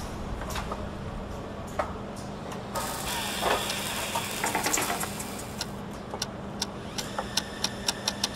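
Diamond-polishing wheel (scaife) running with a steady hum. About three seconds in, a rougher grinding and scraping sets in as the diamond in its holder works against the wheel, with many scattered clicks.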